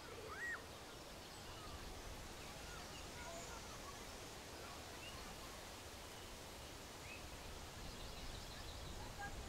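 Outdoor countryside ambience: scattered short bird calls and chirps over a steady low rumble, with one louder call about half a second in.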